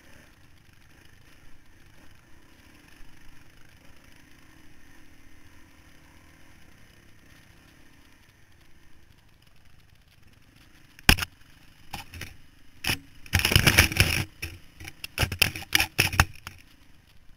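Off-road dirt bike engine running quietly under the onboard microphone, then from about eleven seconds in a run of loud knocks and clatter as the bike pushes through dense brush and branches strike the camera.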